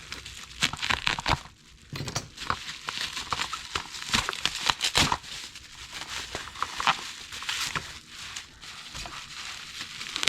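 Packing material being pulled off a taped package by hand: irregular crinkling and crackling of plastic wrap, with some tearing, louder in several spurts.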